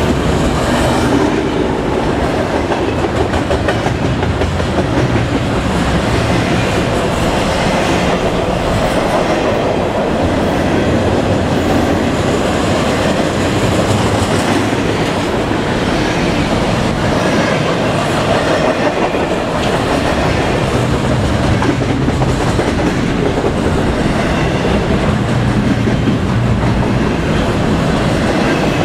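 A double-stack intermodal freight train's well cars rolling past close by: a steady, continuous noise of steel wheels on the rails.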